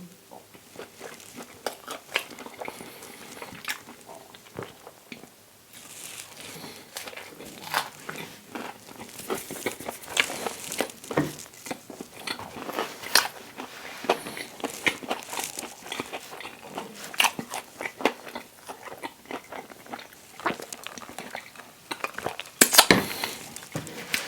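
Close-miked chewing and biting of a toasted English muffin breakfast sandwich with plant-based sausage and cheese: a steady run of crunchy, wet mouth clicks. It goes quieter briefly about five seconds in and is loudest near the end.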